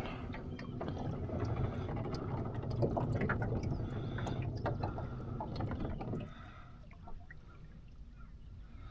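Water sloshing and splashing against the boat and jug as a hooked catfish struggles, with small clicks and knocks; it drops off sharply about six seconds in.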